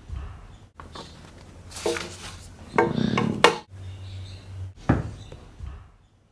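A few scattered knocks and bumps from the camera being handled and moved about over a wooden surface, with the clearest ones about two, three and five seconds in.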